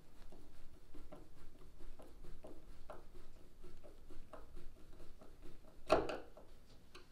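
A hand screwdriver drives a wood screw through a plastic flush-mount rod holder base into an oak block, with a series of faint, irregular ticks and creaks as it turns. There is one louder knock about six seconds in.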